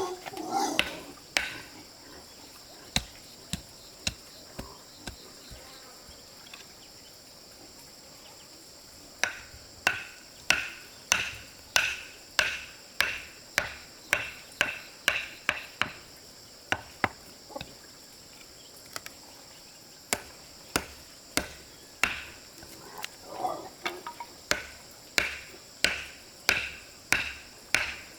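Steady chopping strikes with a blade, about two a second, in runs with a pause in the middle, over a constant high drone of crickets or other insects.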